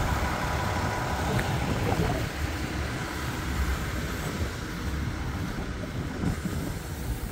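Steady low rumble of a heavy vehicle running close by, slowly fading.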